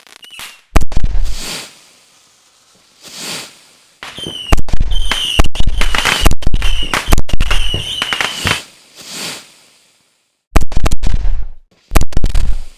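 Fireworks display: aerial shells bursting with loud bangs, with high wavering whistles among them. A single burst about a second in, a dense barrage of bangs from about four seconds to eight and a half, then another flurry near the end.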